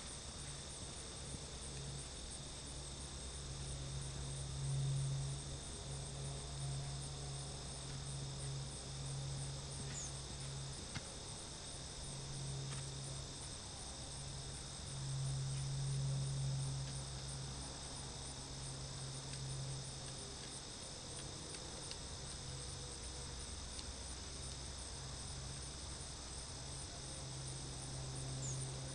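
Insects chirring steadily in a high, even drone. Underneath runs a low hum that swells twice, about five seconds in and again around sixteen seconds.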